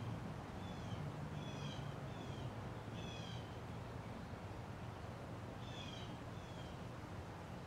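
Hunter Studio Series ceiling fan running with a steady low motor hum. Short, high, falling chirps come in small irregular groups over it, with a gap of a couple of seconds about halfway through.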